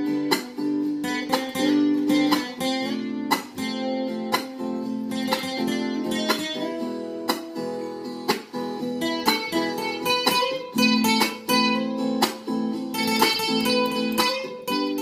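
Steel-string acoustic guitar played solo: a short tune of picked notes and chords in a steady rhythm.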